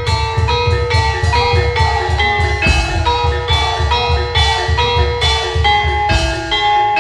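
Javanese gamelan music: bronze metallophones and gongs strike ringing notes in quick succession over a steady, fast drum beat.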